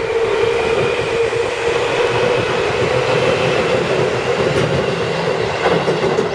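Seibu Kokubunji Line electric commuter train rolling across a steel girder bridge: a loud, steady rumble with a hum, and a couple of sharp wheel clacks in the second half. It eases off slightly near the end as the last car goes by.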